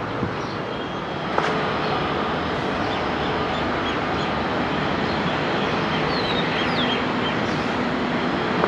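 Jet engine noise from a Boeing 777 rolling out on the runway just after touchdown: a steady, loud rush that steps up about a second and a half in, with a sharp click at that moment.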